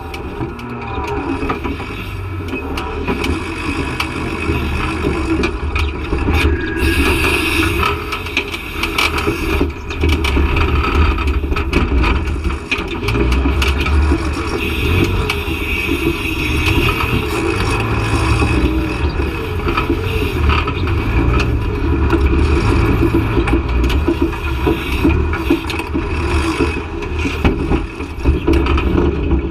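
Off-road buggy's engine running hard under load as it climbs a rocky hill, the revs swelling and dropping again and again.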